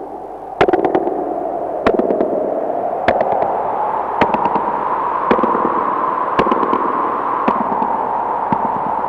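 Experimental electronic noise music from a reel-to-reel tape recording: a hissing wash with a droning band that slowly rises in pitch, broken by sharp crackling pops about once a second, each followed by a few smaller clicks. It gets louder with the first pop, just under a second in.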